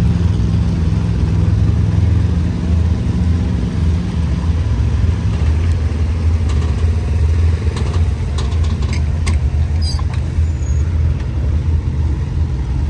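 A vehicle engine running steadily with a loud low rumble, with a few light clicks and knocks.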